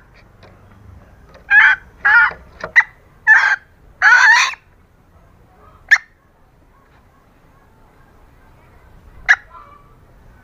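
Red junglefowl hen calling: a quick run of about six short, harsh clucks, the last one the longest, then two single short clucks about six and nine seconds in. This is the hen's call played as a lure for wild junglefowl.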